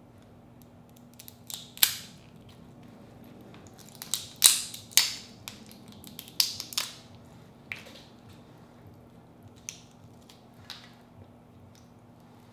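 Cooked crawfish shell being cracked and peeled apart by hand: a run of sharp, crisp snaps and crackles, most of them bunched between about four and seven seconds in, then a few fainter clicks.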